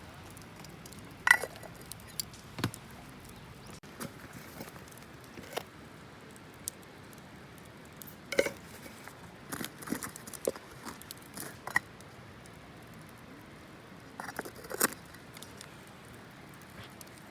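Light clinks and knocks of small hard items being handled, scattered irregularly, a few with a short ring; the sharpest comes about a second in, and a cluster comes near the end.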